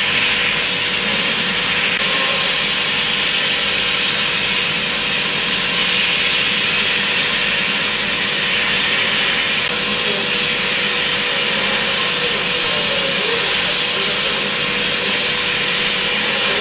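CNC machining centre milling a metal mould cavity with a small end mill during finishing passes: a steady hiss of cutting with a constant tone running under it.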